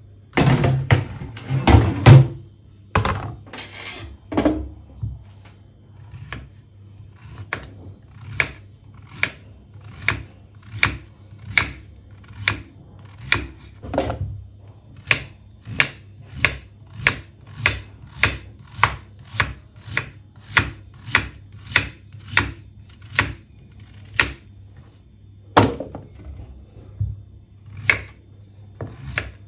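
Kitchen knife slicing raw potato on a wooden cutting board, each cut ending in a sharp knock of the blade on the board, in a steady run of about one to two cuts a second. A few louder knocks come in the first two seconds.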